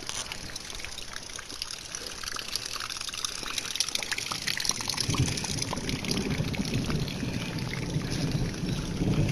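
Light rain pattering and dripping, heard as many scattered small ticks. From about halfway in, wind rumbles on the microphone.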